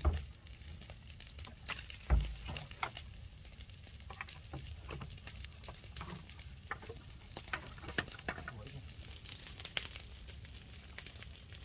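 Rubbish heap of dry leaves and bamboo burning, crackling with irregular small pops, plus a dull thud about two seconds in.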